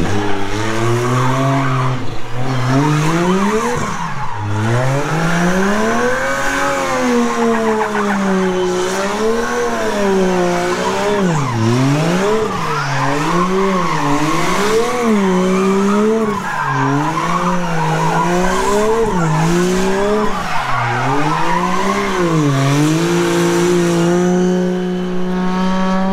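Drift car engine revving up and down over and over as the throttle is worked mid-slide, with tyres squealing. Near the end the revs are held steady.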